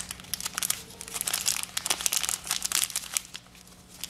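Small thin plastic Ziploc-type bag crinkling as gloved hands open it and slide out a coin capsule. The crackling is densest from about one to three seconds in, then dies down.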